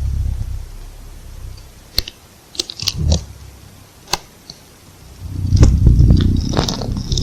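A low, rough growl from an unidentified animal, heard briefly at the start and again, louder and longer, from about five seconds in. In between come several sharp clicks or snaps.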